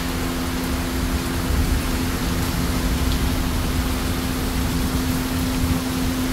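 Heavy rain falling steadily, with a steady low hum running under it.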